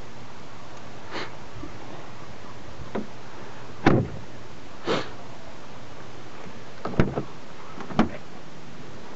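About six short knocks and rustles, unevenly spaced, the loudest a thump about four seconds in, over a steady hiss.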